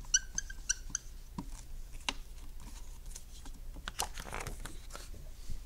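Dry-erase marker squeaking on a whiteboard in several short strokes during the first second, then a few light clicks and a brief paper rustle about four seconds in as a card is handled on the board.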